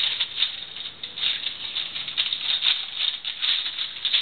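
Gift-wrapping paper crinkling and rustling in quick, irregular crackles as a wrapped present is handled and pushed in among other wrapped gifts.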